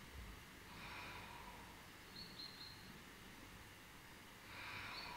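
Two soft, slow breaths, about a second in and again near the end, held in a yoga twist; otherwise near silence.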